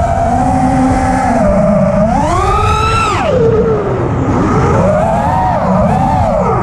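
FPV racing quadcopter's brushless motors and propellers whining, the pitch rising and falling with the throttle. It climbs to a high whine about two and a half seconds in, then drops off sharply just after three seconds, and keeps wavering after that.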